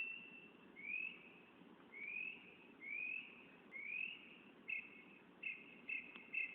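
Northern mockingbird (cenzontle) singing: a clear rising whistled note repeated about once a second, four times, then a switch to a quicker run of short doubled chirps.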